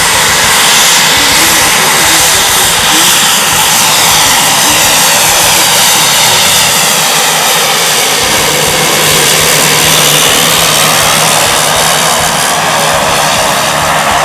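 The twin Garrett TPE331 turboprop engines of a Dornier 228-100 running as the aircraft taxis past: a loud, steady turbine whine with propeller noise, its pitch slowly sliding up and down as the aircraft goes by.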